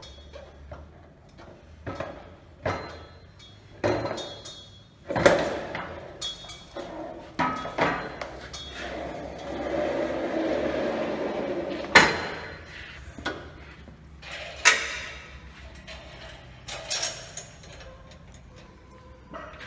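Steel sawmill carriage and frame parts knocking and clanking against a square steel-tube rail as they are fitted together, with sharp metal knocks about 5, 12 and 15 seconds in. A steady scraping rumble lasts a few seconds in the middle.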